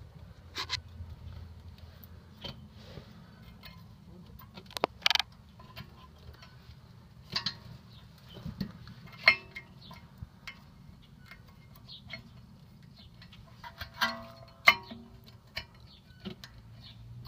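Scattered sharp metallic clicks and clinks, with a few louder ringing clinks about five seconds in and again near the end, as the rear brake pad slider clips and pads of a 1990 Nissan 240SX are fitted back into the caliper bracket.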